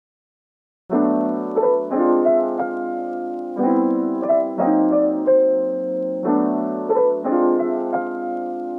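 Background piano music starting after about a second of silence, with notes and chords struck every half second to a second.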